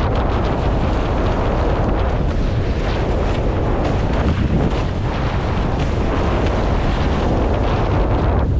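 Wind buffeting a boat-mounted camera's microphone in a steady, heavy rumble, over the hiss and splash of water rushing past a Nacra F18 catamaran's hull.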